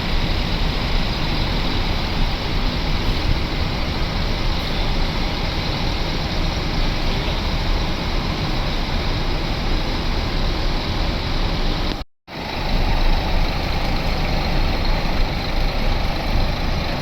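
Heavy bus diesel engine running amid steady road traffic noise, with no horn sounding. The sound drops out completely for a split second about twelve seconds in, then the same engine and traffic noise resumes.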